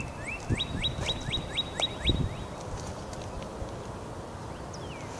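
A songbird singing one phrase: a short held note, then about seven quick rising whistled notes, about four a second, that stop a little over two seconds in. A low, uneven rumble with a few soft thumps runs underneath.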